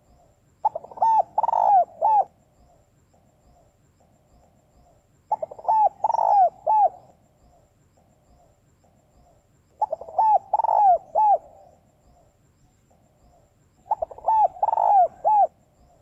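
Female spotted dove cooing: four calls about four and a half seconds apart, each a quick run of several coos.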